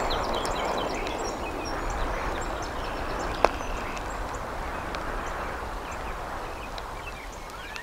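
Steady hiss of rain at an outdoor eagle nest. Faint bird chirps scatter over it, and there is one sharp tap about three and a half seconds in.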